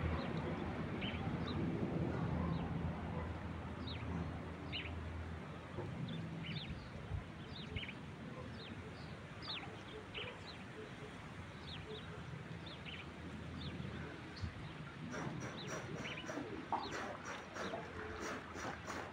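A bird calling again and again in short falling chirps, over a low rumble that fades over the first few seconds. In the last few seconds water splashes and slaps as a man moves his arms while standing waist-deep in a pool.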